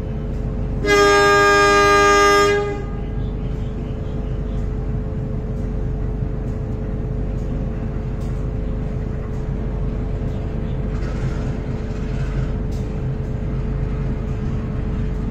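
A diesel train's horn sounds once, a steady blast of about a second and a half about a second in, over the continuous rumble of the train running on the rails with a constant hum underneath.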